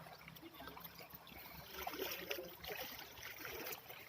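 Faint, uneven trickling water with scattered small clicks.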